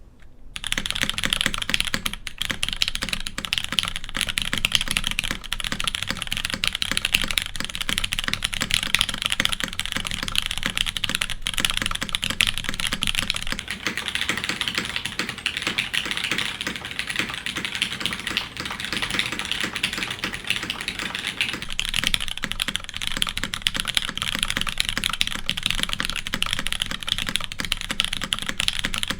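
Custom tenkeyless mechanical keyboard with an aluminium plate, lubed MX Ergo Clear switches and GMK keycaps being typed on quickly and continuously. The keystrokes start about half a second in.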